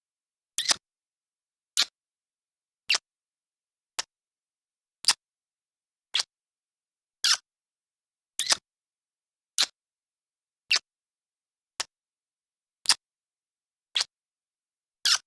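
Kissing sound effect: short lip-smack kisses, one about every second against total silence, a few of them doubled.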